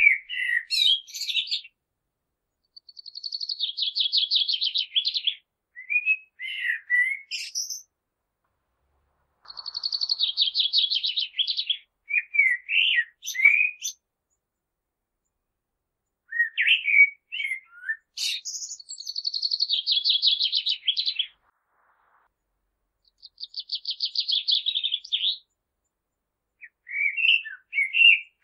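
Common blackbird singing in separate phrases: runs of rapid, high, repeated notes lasting two to three seconds, alternating with shorter, lower warbled notes, with pauses of a second or two between phrases.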